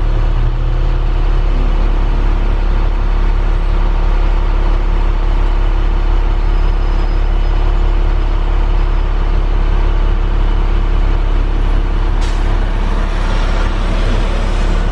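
Vehicle driving along the road: steady, loud low rumble of engine and road noise. A sharp click about twelve seconds in, followed by a brief hiss.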